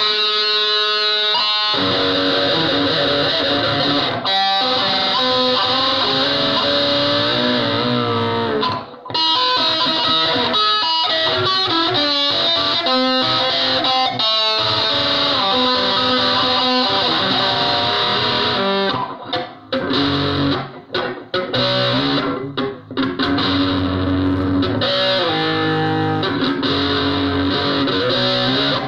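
Stratocaster-style electric guitar played through heavy distortion: sustained, bending notes, turning into choppy stabs with sudden cut-offs in the second half.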